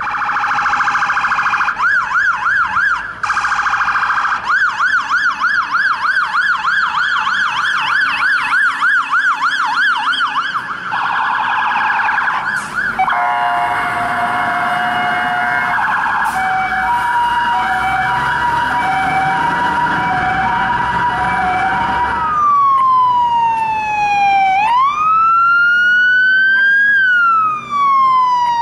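Fire truck sirens on aerial pumpers. First a fast, rapidly repeating phaser sweep, then a hi-lo two-tone alternating between a lower and a higher note. After an abrupt change about 22 seconds in comes a slow wail that falls and rises in long glides.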